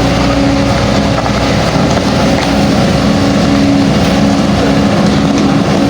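Excavator's diesel engine running loud and steady, its pitch dipping and rising a little as it works.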